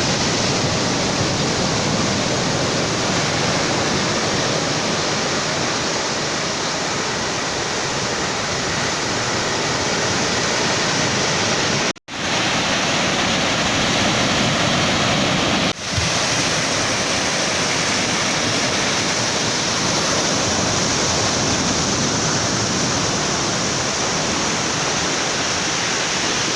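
Ocean surf rushing steadily onto a beach, with a constant noisy wash and no distinct single waves standing out. The sound drops out briefly twice near the middle.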